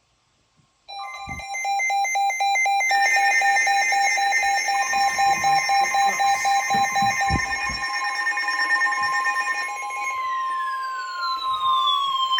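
Weather radio receivers sounding their alert alarms for a flash flood warning. A fast-pulsing beep starts about a second in, other beeping and steady tones join it, and near the end several siren-like tones sweep down in pitch.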